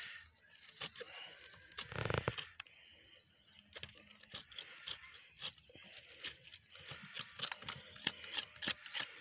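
Metal scraper blade scraping and chipping at the edge of a compressed-earth interlocking brick: a run of short scratches and clicks, with a longer, louder rasping scrape about two seconds in. The edge is being cut back to form a sharp corner.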